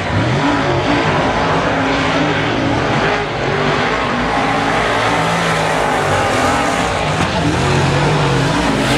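A field of semi late model race cars running laps together, with several engines rising and falling in pitch as they go through the turns and down the straights.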